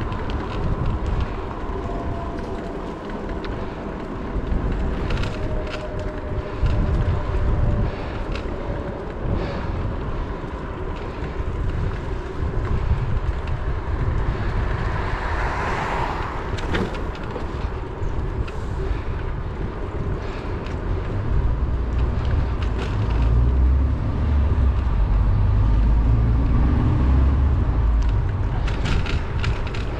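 Wind buffeting a head-mounted action camera's microphone on a moving bicycle, over steady street and road noise. A louder swell of noise passes about halfway through, and the low wind rumble grows heavier in the last third.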